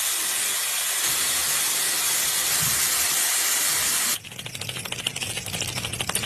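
A loud, steady hissing noise, which drops about four seconds in to a quieter run of rapid crackling clicks.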